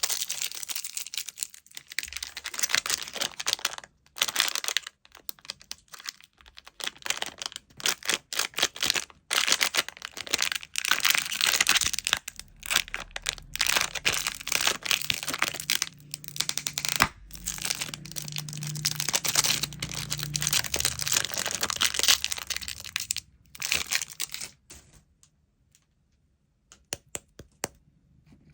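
Crinkly plastic candy wrappers being handled and torn open, in irregular spurts of crackling with short pauses; the crackling stops about 23 seconds in, leaving a few light clicks.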